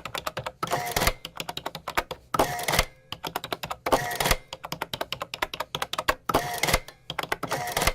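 Mechanical adding machine in use: fast runs of key clicks, each broken by a short, louder clattering machine cycle, about five times.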